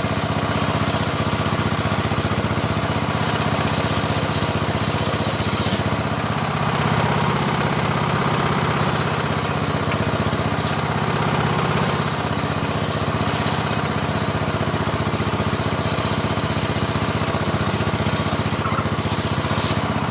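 Portable band sawmill's engine running steadily, with a high hiss over it that drops out for a few seconds midway and briefly a couple of times more.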